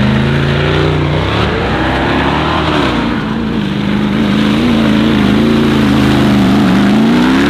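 Trophy truck's engine revving as it is driven hard over dirt. The pitch climbs a little after a second in, wavers up and down with the throttle, dips, then climbs again near the end.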